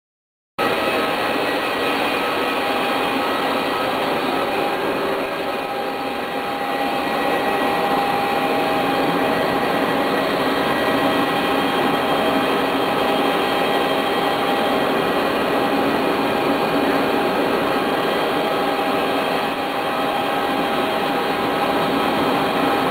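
Jet airliner machinery at the gate: a steady rush with a high whine of several steady tones, starting suddenly about half a second in.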